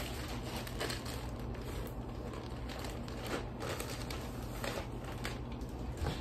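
Plastic packaging and clothing rustling and crinkling in irregular bursts as items are pulled out and unwrapped.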